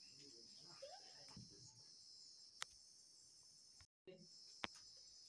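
Near silence: faint steady high-pitched background hiss with a couple of small clicks.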